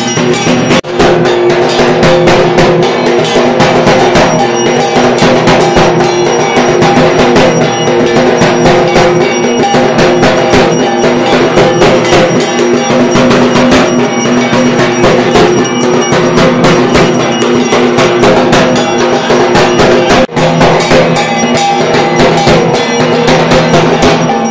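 Dhak drum beaten rapidly with thin sticks, with steady metallic ringing over the beats, as played for a Durga Puja arati.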